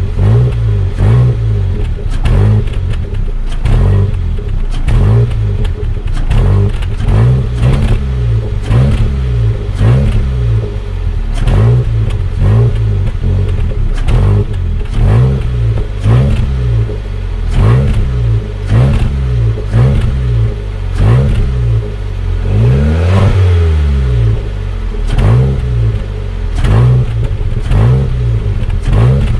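Car engine revved through its exhaust in short repeated throttle blips, each rising and falling back, a little more than one a second, kept light rather than pushed hard. One longer, higher rev comes a little past two-thirds through.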